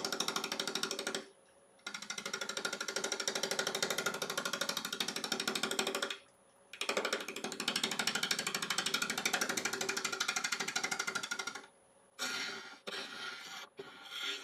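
Bowl gouge taking an interrupted cut on the outside of an out-of-round ash offcut spinning on a wood lathe: a rapid, even chatter as the tool strikes wood on each revolution and cuts air between strikes. The cut stops briefly three times, and near the end it turns to shorter, uneven scraping.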